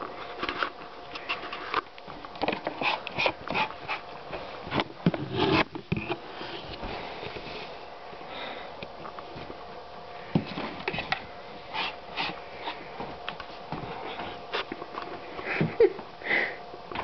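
A cat with its head inside a plastic coffee canister, sniffing and eating the ground coffee: irregular clicks, crackles and rustles as its muzzle works in the grounds and knocks the tub.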